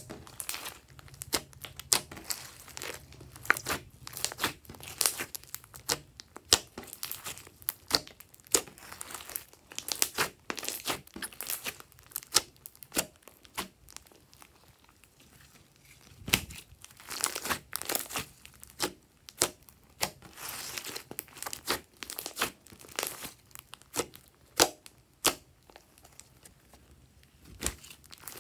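Hands kneading, squeezing and stretching a large mass of glossy slime, giving irregular sticky clicks and pops that come in crackling bursts as the slime is pressed and pulled apart.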